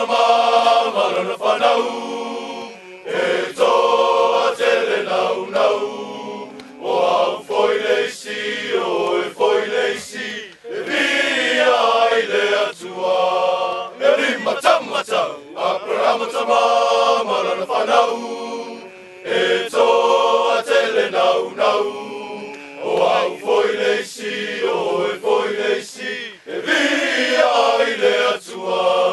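A group of Samoan soldiers singing together, many voices in phrases a few seconds long with short breaks between them.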